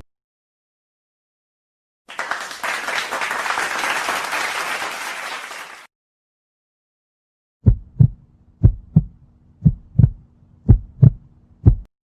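Sound effects: about four seconds of applause, then after a pause a heartbeat effect of paired thumps, lub-dub, about one beat a second, over a faint hum.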